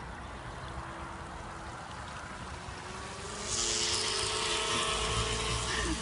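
Home-built twin-motor RC jet boat running on the water: a steady motor whine with the hiss of its water jets, getting louder about three and a half seconds in.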